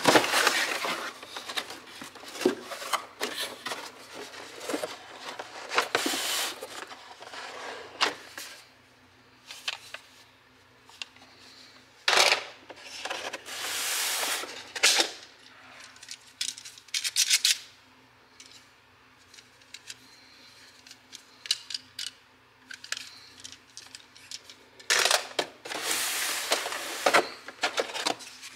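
Cardboard box and molded pulp packaging being handled: rustling and scraping in irregular bursts with scattered clicks and knocks, and quieter pauses between.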